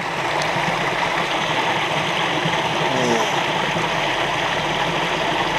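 Mountain stream water rushing, heard with the camera held underwater: a steady, even, muffled rush.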